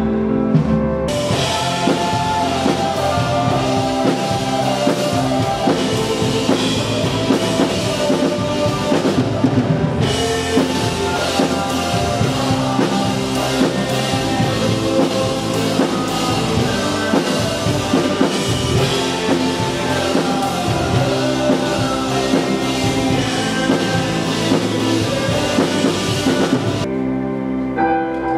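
Live worship band playing: drum kit, guitars and keyboard. The drums and cymbals come in about a second in and stop near the end, leaving the sustained keyboard notes.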